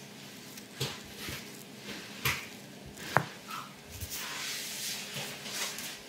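Spinal joints popping during a side-lying twist adjustment: a few sharp cracks, the loudest and crispest about three seconds in, followed by rustling of cloth.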